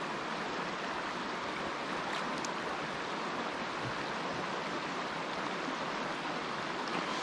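Mountain stream running over a stony bed: a steady, even rush of flowing water.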